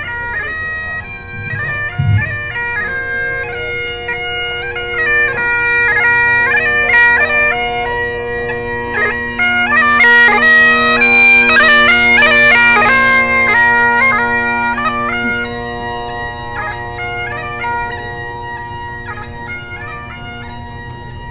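Highland bagpipes playing a tune: steady drones under a stepping chanter melody with quick grace notes. It grows louder as the piper passes close about ten seconds in, then fades.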